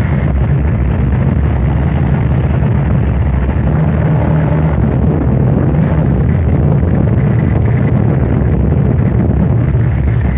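Harsh noise music: a loud, unbroken wall of distorted, rumbling noise, heaviest in the bass, with a faint high tone flickering in and out.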